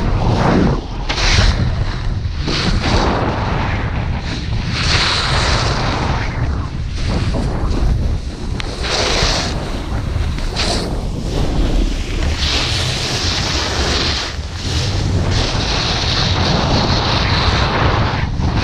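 Wind buffeting the action camera's microphone, with a snowboard's edges scraping and hissing over the snow in surges as it turns.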